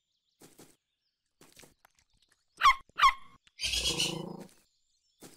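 Cartoon puppy giving two short, high yips that fall in pitch, followed by a rougher call lasting about a second.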